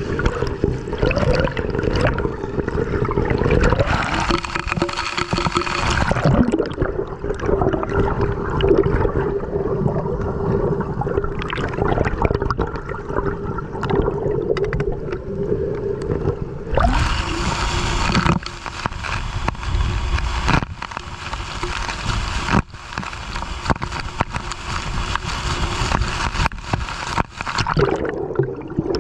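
Muffled water and gurgling sounds heard through a camera's waterproof case during a dive, with a steady low hum. About two-thirds of the way through the noise turns brighter and hissier, broken by short gaps.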